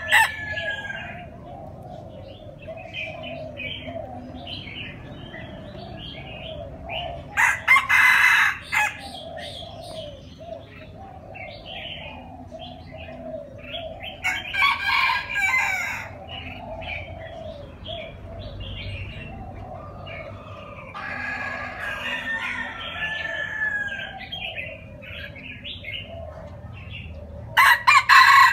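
Red junglefowl rooster crowing four times, a short crow roughly every six or seven seconds, the third one softer.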